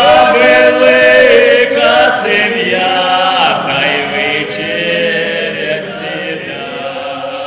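Male voices singing a Cossack folk song in long, drawn-out notes, starting loud and easing off toward the end.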